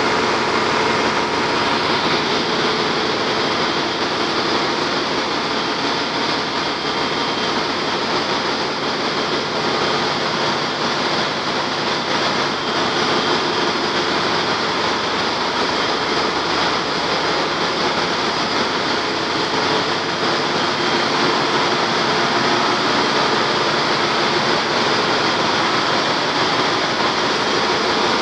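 Steady, loud drone of a ship's engine-room machinery running: a dense rushing noise with a few faint steady tones on top, unchanging throughout.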